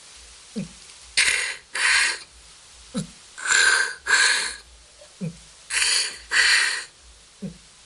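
Human beatbox radio-tuning filter effect: a short falling 808 bass boom, then a hissing sound drawn in and one pushed out, repeated three times. A fourth bass boom comes near the end.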